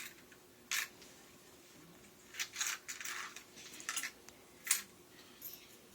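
Lego bricks being handled and pulled off a homemade Lego dispensing machine, a scattered run of sharp plastic clicks and clatters.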